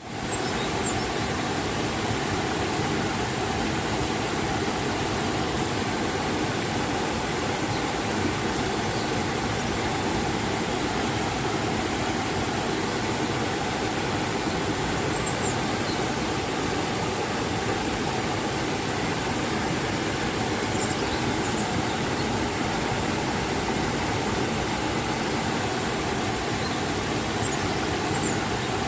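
River and waterfall rushing in a steady, unbroken wash of water noise.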